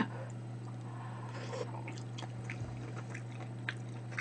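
Soft chewing and mouth sounds of a person eating multigrain rice porridge from a spoon, with a few faint clicks, over a steady low hum.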